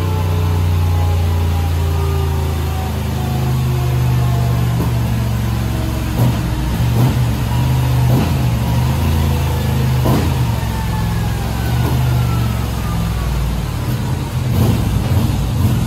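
Moto Guzzi V7 850's air-cooled transverse V-twin running on a dynamometer during fuel-map tuning. It slows with a falling whine over the first few seconds, then keeps a steady low engine note. From about six seconds in, irregular sharp knocks come every second or two.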